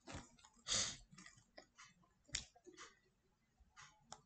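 Faint pause with a short breath near the start, then a few scattered light clicks.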